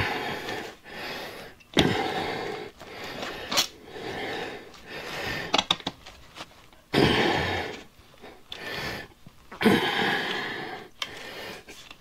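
A man breathing hard in strained, noisy exhales while forcing a stiff airless tire onto a small rim, with a few short clicks in between.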